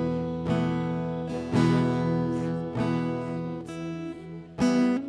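Acoustic guitar strumming slow chords, a fresh strum every second or so, each left to ring and fade.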